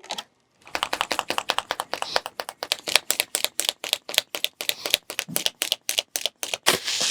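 Rapid ratcheting clicks, about eight a second for some six seconds, with a short break about five seconds in: a ratchet mechanism being worked.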